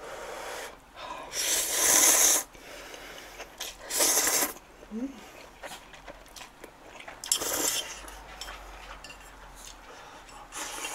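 A person slurping thick instant ramen noodles (Ottogi Odongtong-myeon) off chopsticks in four loud slurps, the longest about two seconds in. The last slurp, near the end, is broth drunk from the bowl.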